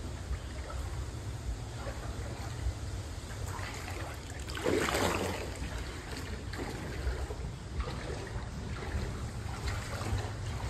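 Floodwater sloshing and swishing as someone wades through it, over a steady low rumble, with a louder swash about five seconds in.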